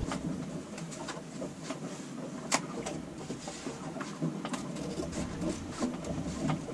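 Scissors snipping irregularly into a fabric sail bag, with handling rustle. One sharper click comes about two and a half seconds in.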